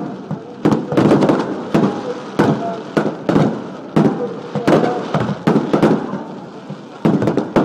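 Fireworks barrage: aerial shells bursting in a rapid, irregular string of sharp bangs, several a second, each trailing off in a rumble.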